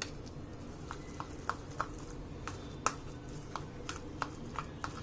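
Metal spoon clicking and scraping against a plastic bowl while stirring a thick garlic butter paste: light, irregular taps about three a second over a faint steady hum.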